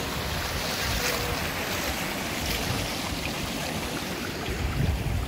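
Steady rush of a flowing mountain stream, with wind buffeting the microphone as an uneven low rumble.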